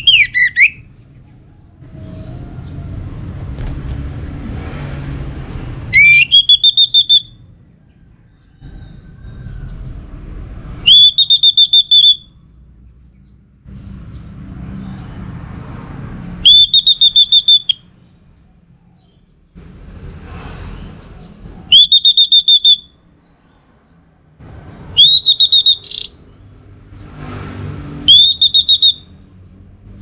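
Orange-headed thrush singing loud whistled phrases about every three to five seconds. Each phrase is a quick upward sweep into a high, fluttering held note about a second long. A low background rumble fills the gaps.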